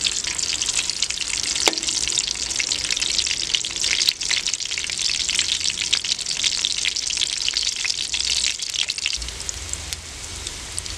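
Whole boiled potatoes frying in hot ghee in an aluminium karahi: a dense, steady sizzle and crackle, the potatoes just starting to brown. A few sharp clicks come from the metal slotted spoon knocking the pan as they are turned, and near the end the sizzle eases while a low hum comes in.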